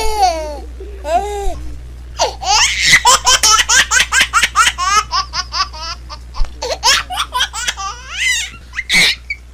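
High-pitched laughter in quick repeated bursts, busiest from about two to six seconds in.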